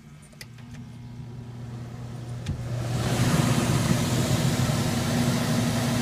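RV rooftop air conditioner switched on at its rotary control: a few knob clicks, then the fan motor hums and spins up, with a loud rush of air from about three seconds in. The fan now starts on its own, with its capacitor replaced.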